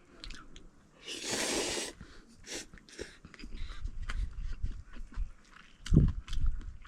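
A person eating cup ramen close to the microphone: a long slurp of noodles about a second in, then chewing and mouth clicks, with a heavy low thump near the end.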